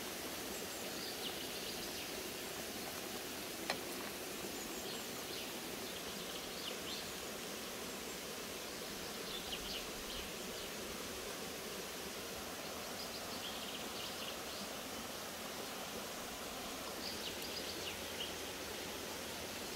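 Forest ambience: a steady hiss of open air with groups of short, high chirps every few seconds, and one sharp click about four seconds in.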